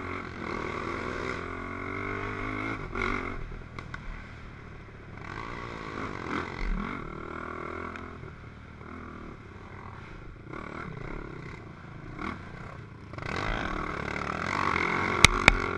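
Racing ATV's engine revving up and down as the quad is ridden hard over a rough muddy trail, growing louder near the end, with two sharp knocks just before the end.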